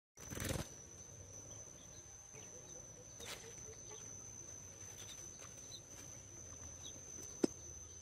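A steady high-pitched insect drone with scattered faint chirps, and one sharp knock near the end as a brick deadfall trap drops flat over its hole.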